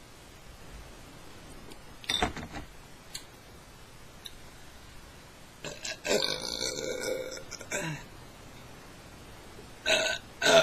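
A woman burping: one long, drawn-out burp lasting about two seconds in the middle, with a short sound about two seconds in and two brief ones near the end.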